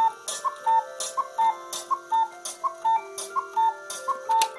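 Black Forest cuckoo clock striking twelve: the bellows-driven two-note cuckoo call, high then low, repeats about every three-quarters of a second, each call with a sharp mechanical click. The last call comes near the end.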